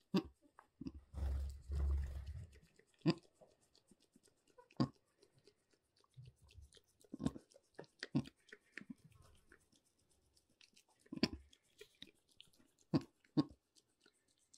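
Nanny goat licking and nuzzling her newborn kid: a scattered series of short wet smacks and clicks from her mouth, about eight in all, with a low rumble a second or so in.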